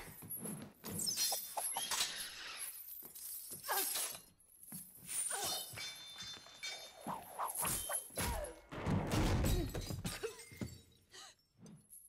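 A steel ball on a chain (a meteor hammer) swings and smashes glass tabletops: several crashes of shattering glass with clanks and whooshes, thinning out near the end.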